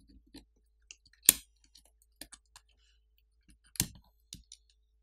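Metal pry tool working the top sub-board with the SIM card reader loose from a Xiaomi Black Shark 3 phone: scattered light clicks and ticks, with two sharper snaps, one about a second in and one near four seconds.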